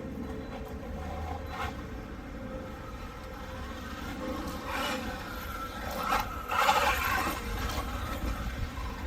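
Losi Super Rock Rey 1/6-scale electric RC truck driving on skate-park concrete: a steady electric-motor whine with a low rumble, broken by scraping bursts from its tyres about five seconds in and again, loudest, around seven seconds in.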